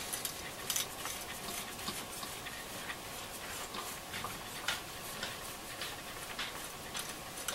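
Faint, irregular clicks and taps from hands handling the small plastic and metal parts of a transistor radio chassis around its tuning capacitor and dial drum.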